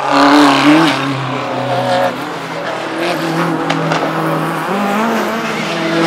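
Racing car engines working through a slow corner, with a sharp rev rise in the first second, the pitch falling back around two seconds in, and climbing again near the end as the next cars accelerate.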